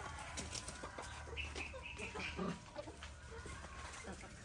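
Chickens clucking faintly in short, scattered calls.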